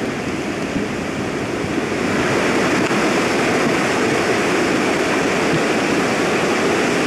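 Steady rushing roar of a rain-swollen mountain torrent, with floodwater and mud pouring down the valley. It gets a step louder about two seconds in.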